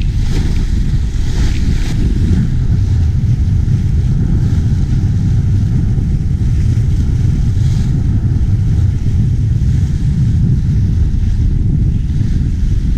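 Wind buffeting the camera's microphone on a sailing yacht under way, a loud steady low rumble, with water rushing along the hull underneath.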